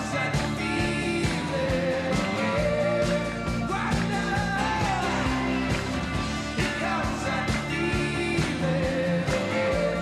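Rock band playing a song with a steady drum beat, electric bass, guitar and keyboards under a lead vocal with a second voice singing along.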